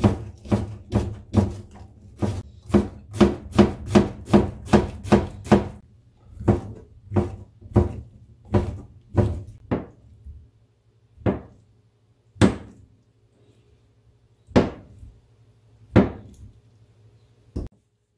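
Kitchen knife chopping on a plastic cutting board, first through green onion and then mushrooms. Quick, steady strokes come about two to three a second, slow down after about six seconds, and near the end give way to a few single cuts well apart.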